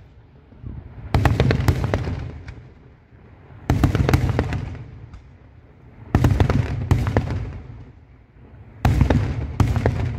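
Daylight fireworks shells bursting in the sky in four volleys about two and a half seconds apart. Each volley is a quick cluster of loud bangs followed by a rolling rumble that dies away.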